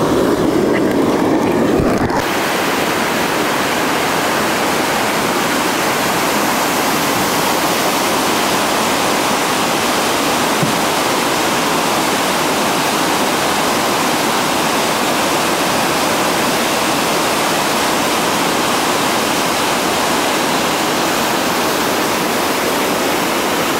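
Loud, steady rush of whitewater rapids. It sounds duller for the first two seconds, then settles into an even, full roar of churning water.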